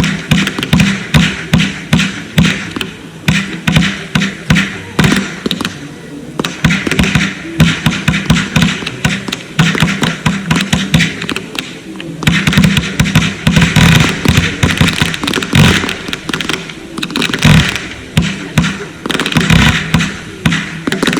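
Consumer fireworks going off in rapid succession: a dense, continuous run of sharp bangs and crackles, several a second, with brief dips around six and twelve seconds in.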